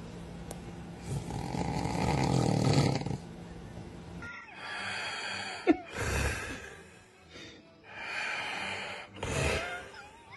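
Snoring: one long snore over the first three seconds, then, after a sudden change of recording about four seconds in, a run of shorter snores.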